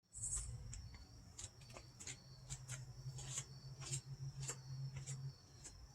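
Insects chirping: a steady high trill with irregular sharp chirps over it. A low hum runs underneath and stops a little after five seconds in.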